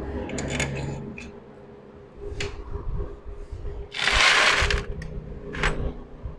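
Scattered metal clicks and knocks of hand tools and parts as a rebuilt Honda CG125 engine is fitted into its motorcycle frame, over a faint steady hum. About four seconds in comes a loud burst of hiss lasting under a second.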